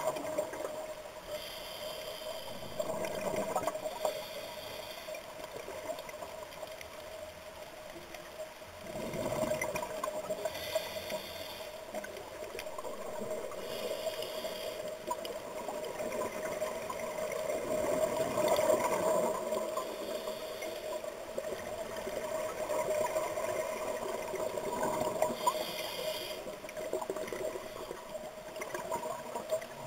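Scuba breathing through a regulator heard underwater: recurring hissy breaths and gurgling rushes of exhaled bubbles, over a steady hum.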